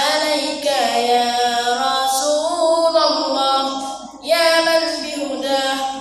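A solo voice singing an Arabic nasheed in long, held, ornamented notes. There is a short breath break about four seconds in.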